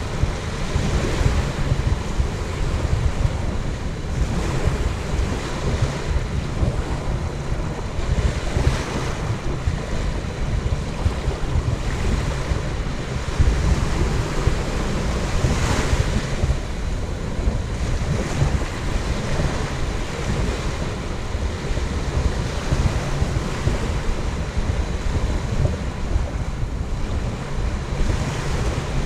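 Small waves washing onto a sandy beach, a steady rush with a few louder washes, while wind buffets the microphone with a low rumble.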